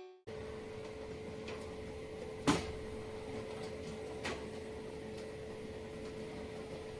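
Quiet room tone with a steady hum, broken by one sharp knock about two and a half seconds in and a couple of fainter clicks.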